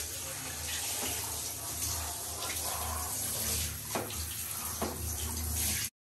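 Handheld shower head spraying water in a bathtub while a small dog is rinsed and scrubbed: a steady hiss of running water with a low hum underneath. There are two short knocks a little after the middle, and the sound cuts off abruptly shortly before the end.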